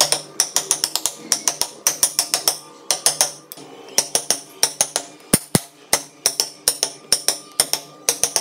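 Chisel being driven into a wooden block with quick, sharp taps, several a second in clusters with short pauses, carving a relief; two deeper knocks about halfway through.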